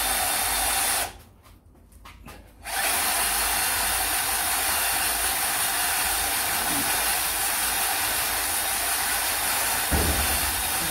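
Cordless drill running, turning a belt-and-pulley reduction of about 9 or 10 to 1 that winds the head of a Rong Fu RF30 round-column mill-drill down its column. The drill runs for about a second, stops for a moment and starts again, then runs steadily, with a low rumble coming in near the end.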